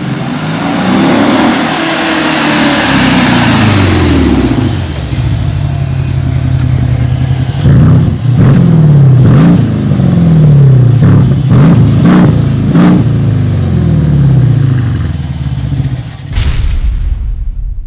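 Mercedes-Benz CLS 500's V8 through an aftermarket mariani sport exhaust: the car accelerates past, then, standing still, the engine is revved several times in short rises and falls. Near the end comes a sudden short burst, then a low rumble.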